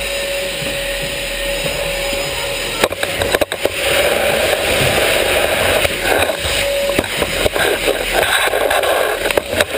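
Vacuum cleaner running with a steady whine over rushing air, pushed across a hard floor. A couple of sharp knocks come about three seconds in, after which it grows louder and rougher, with irregular scraping and clattering as it bumps along baseboards and furniture.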